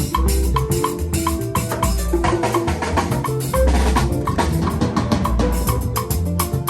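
Live band playing an instrumental groove on drum kit, bass and held chords, with a steady high click like a wood block keeping time.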